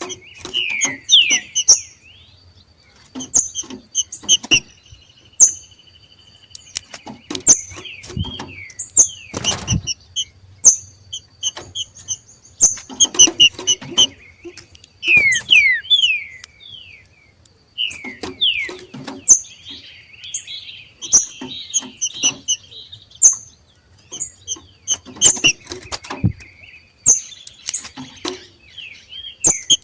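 Green-winged saltators (trinca-ferro) giving the 'macheado': clusters of sharp, high call notes and quick falling whistles, repeated in bursts every second or two. This is the call these birds give in breeding condition. Scattered clicks and a few loud thumps come in among the calls.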